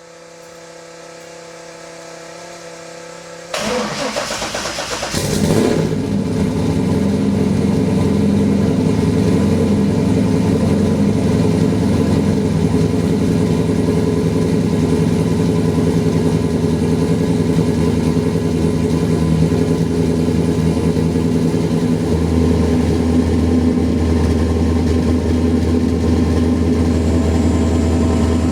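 Corvette V8 cranked by the starter for under two seconds until it catches, then idling steadily. The engine has fresh spark plugs, wires and coils, and resealed cat-back exhaust gaskets. A steady hum comes before the start, and the idle note deepens about twenty seconds in.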